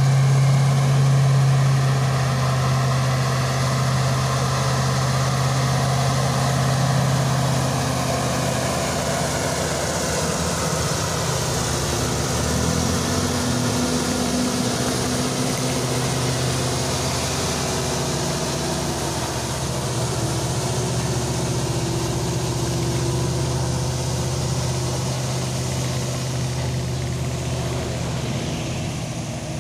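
Diesel truck engines pulling slowly up a hill as a loaded semi-trailer truck passes close by. The low engine note is steady at first, changes about ten seconds in, and slowly grows fainter toward the end.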